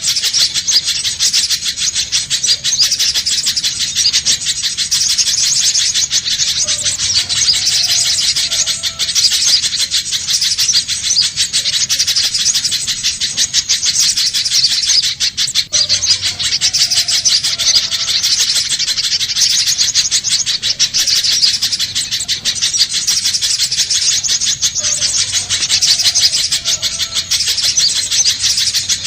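Little spiderhunter calling in a continuous stream of very rapid, high-pitched chattering notes, used as a bird-catching lure call.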